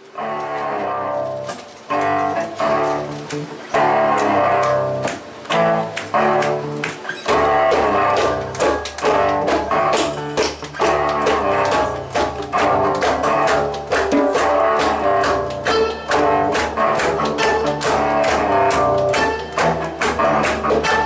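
Live folk band playing an instrumental passage: fiddle with cello, acoustic guitar and hand drum, in short phrases with brief breaks. About seven seconds in a low bass line and a steady drum beat come in and the full band plays on.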